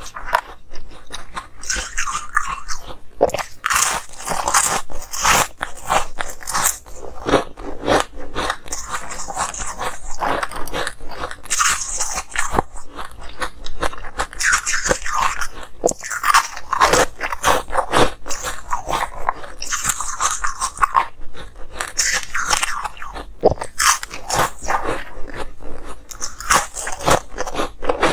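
Close-miked biting and chewing of frosty ice cubes: a dense run of crisp crunches as the ice cracks and is ground between the teeth, going on without pause.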